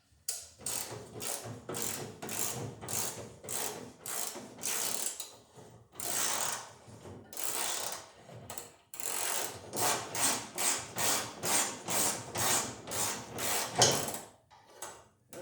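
Socket ratchet wrench on a long extension being worked back and forth in quick strokes, about two a second, its pawl clicking, as it backs off a stiff lock nut; it pauses briefly about two-thirds of the way through, then carries on.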